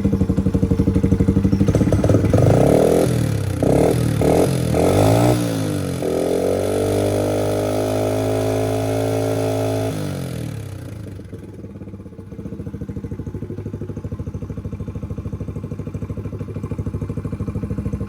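Honda CRF70's small air-cooled four-stroke single idling, then blipped about four times, held at higher revs for a few seconds and let fall back to a steady idle. The engine has a freshly fitted aftermarket top end with the valves set to stock specs, and runs without valve-train noise.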